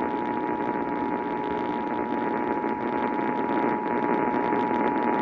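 Emergency Alert System attention signal, the steady two-tone alert tone, sounding continuously through radio static. The sound is narrow and hissy, cut off above the middle range, as from an off-air radio receiver.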